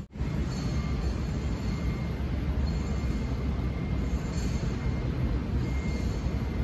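Steady low rumbling background noise, broken by a brief dropout right at the start.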